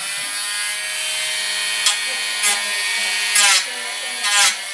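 Dremel Stylus cordless rotary tool running with a sanding wheel, a steady motor whine, sanding down built-up putty on a model ship's wooden side walls. Four short, louder bursts where the pitch bends come as the wheel bears into the work.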